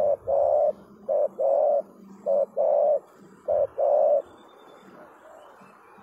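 Spotted dove cooing: four phrases, each a short note followed by a longer one, about a second apart, stopping about four seconds in.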